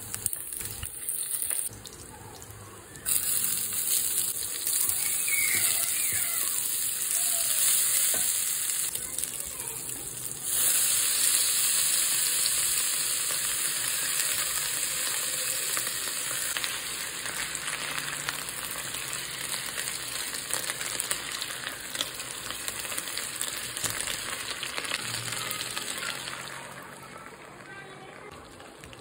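Food sizzling as it fries in hot oil, with stirring; the sizzle jumps louder about three seconds in and again about ten seconds in, and dies down near the end.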